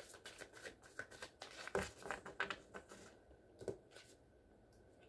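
Tarot cards being handled: a quick run of light, irregular clicks and slides of card stock for about three seconds, then only faint scattered ticks.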